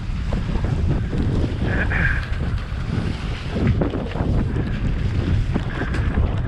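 Wind buffeting a helmet-camera microphone over the rumble of mountain bike tyres on a wet dirt trail at speed, with the bike knocking and rattling over roots and rocks. A brief high squeal about two seconds in.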